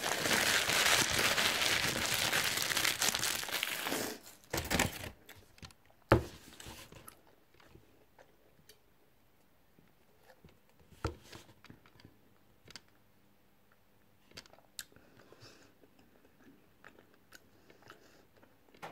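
Paper food packaging being crumpled up by hand for about four seconds, followed by a sharp knock just after six seconds and then a few faint taps and rustles.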